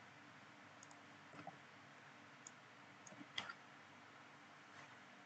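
Near silence broken by a few faint, scattered clicks of a computer keyboard and mouse, the loudest about three and a half seconds in.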